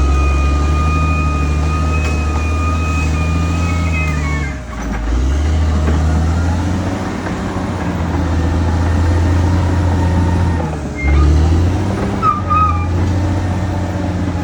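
Caterpillar D6R XL bulldozer's diesel engine running steadily, easing off briefly twice, with a steady high-pitched whine over the first four seconds or so and again briefly near the end.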